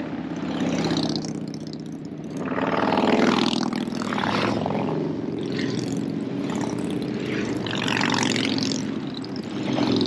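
A string of motorcycles riding past one after another, engine sound swelling and fading as each goes by, with one engine's pitch dropping as it passes about three seconds in.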